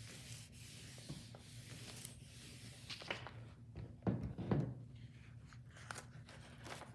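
Household iron sliding back and forth over silicone release paper, its soleplate rubbing dryly on the paper to press the mounting film flat. About four seconds in, two louder knocks.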